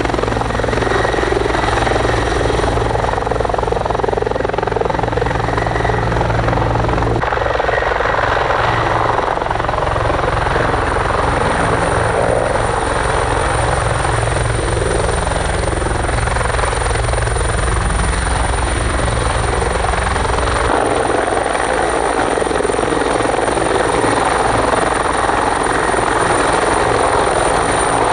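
Bell 412EPi helicopter hovering close by: steady loud rotor and twin-turbine noise with a high turbine whine on top. The low end of the sound changes abruptly about seven seconds in and again about twenty-one seconds in.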